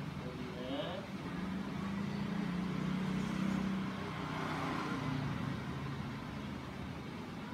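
A motor vehicle passing by on the street: a low engine hum that swells and fades away over a few seconds.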